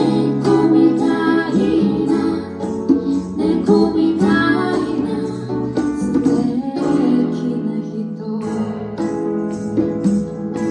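Live band playing a song, a woman singing the lead over keyboards, guitar and hand percussion.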